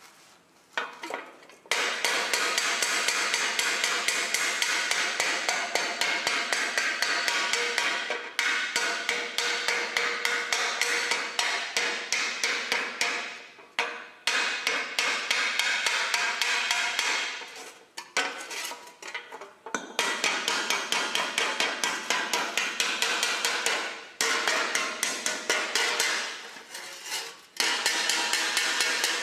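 Hand hammer striking a rusty steel plate laid on an anvil, in fast runs of several blows a second with short pauses between runs, each blow a ringing metal clang.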